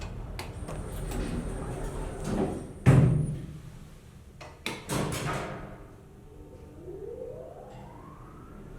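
Old elevator's doors and machinery working: a run of sharp clunks, the loudest about three seconds in and a few smaller ones a couple of seconds later, then a whine rising in pitch over the last two seconds.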